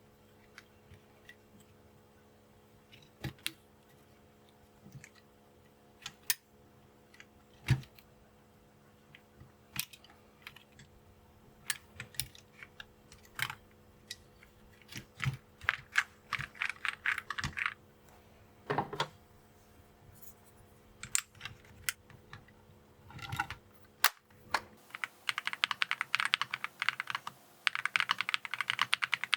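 Mechanical keyboard fitted with Akko V3 Cream Yellow linear switches: scattered single key presses and a short flurry, then steady continuous typing near the end.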